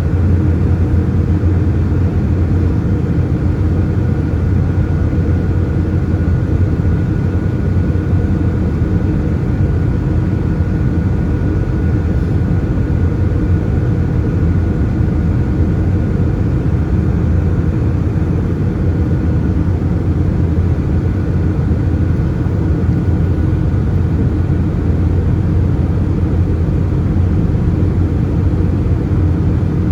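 Airbus A320 cabin noise from a window seat in flight: a steady low drone of the CFM56 engines and airflow, with a faint high whine over it that fades in the later part.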